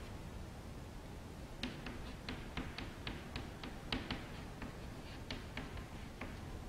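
Chalk tapping and scratching on a chalkboard as letters and plus signs are written, a quick run of sharp taps, about four a second, starting about a second and a half in and stopping shortly before the end.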